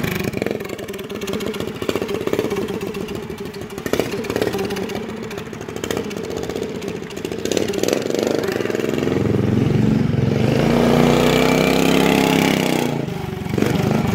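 Scratch-built mini bike's small engine running as it is ridden along the street, with a rapid steady putter. About two-thirds of the way through it gets louder and its pitch climbs and wavers as it is revved, then it eases back near the end.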